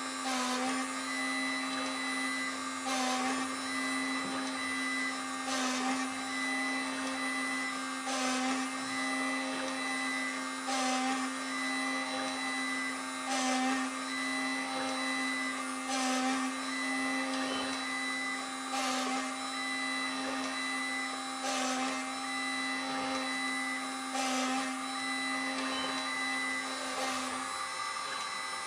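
Proxxon engraver, used as the spindle of a CNC3018-based PCB drilling machine, running at high speed with a steady whine. About every two and a half to three seconds a short stepper-driven move and plunge interrupts it as the 0.8 mm drill bores the next hole in the circuit board.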